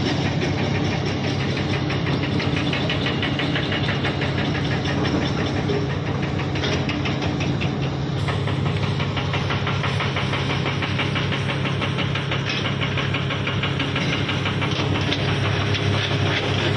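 Diesel engines of large hydraulic excavators working in a pit, running steadily as a deep drone with a fast, even diesel clatter.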